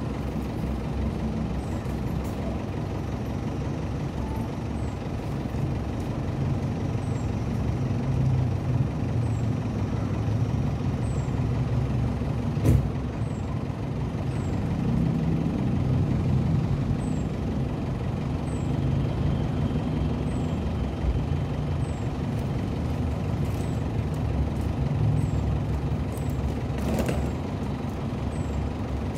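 Isuzu Crosswind's engine idling steadily, a low rumble that swells and eases slightly. There is one sharp click near the middle.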